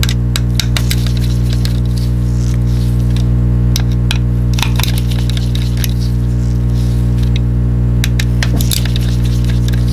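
Small precision screwdriver working the screws in a Logitech G Pro mouse's plastic shell: scattered light clicks and ticks of the metal bit against screw heads and plastic, in clusters about half a second in, near the middle and near the end. A loud, steady low electrical hum runs underneath throughout.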